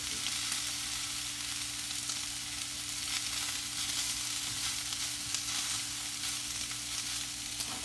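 Meatballs sizzling as they fry in oil in a nonstick skillet, a steady hiss, with a few light clicks as silicone-tipped tongs turn them in the pan.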